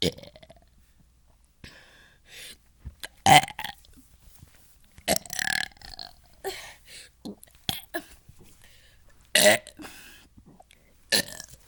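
A person burping over and over: about five loud belches a couple of seconds apart, one of them longer and drawn out around the middle, with quieter breathy sounds between them.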